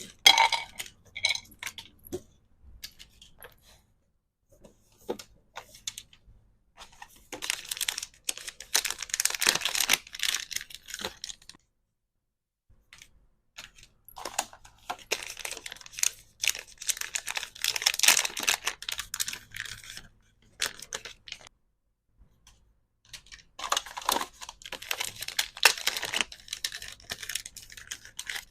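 Plastic packaging crinkling and tearing, with small clicks and taps from handled items, in three busy bursts separated by pauses of silence.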